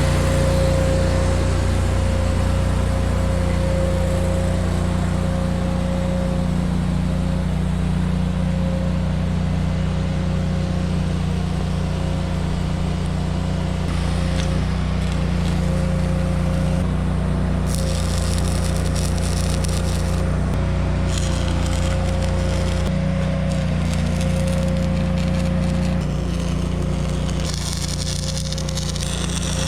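Angle grinder with a flap disc running steadily against the steel roof rack, stripping paint to bare metal: a constant motor whine over a grinding hiss that grows brighter at times.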